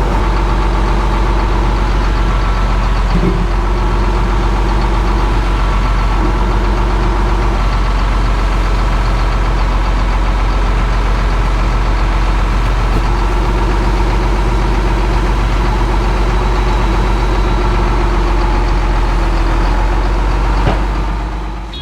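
John Deere loader's diesel engine running steadily at a constant pitch while it lifts a heavy frame.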